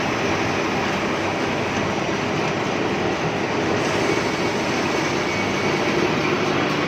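Wood moulding machine running steadily while it shapes teak timber: a continuous, even mechanical noise.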